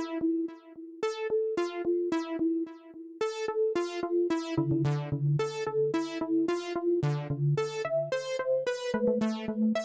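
Background electronic keyboard music: short synth notes struck at a quick, even pace, with low bass notes joining about halfway through.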